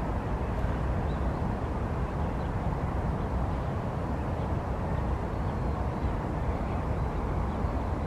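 Steady low outdoor background rumble with no distinct calls or events; the swimming smew is silent.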